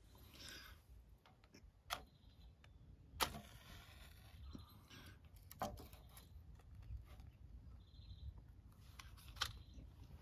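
Water drops falling from the trees onto a wet nylon tent fly, a few sharp irregular taps, four of them louder, over a faint outdoor hush. A brief faint high tone sounds near the end.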